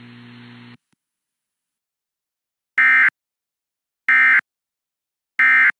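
Emergency Alert System End of Message data bursts: three short identical electronic screeches about 1.3 seconds apart, marking the end of the broadcast severe thunderstorm warning. They are preceded by a faint hum of the broadcast line, which cuts off within the first second, leaving a gap of silence.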